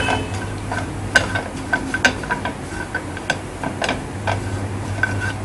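A slotted spatula stirring cashews, almonds and desiccated coconut as they dry-roast in a nonstick pan: irregular light taps and scrapes against the pan, over a low steady hum.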